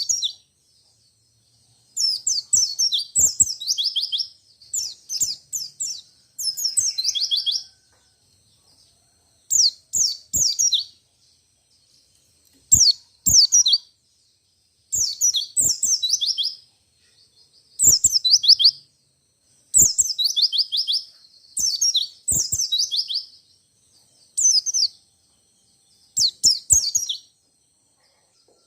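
Wild white-eye (Zosterops, 'pleci') singing in quick runs of high twittering chirps. Each burst lasts about one to two seconds and is followed by a short pause, about a dozen times over.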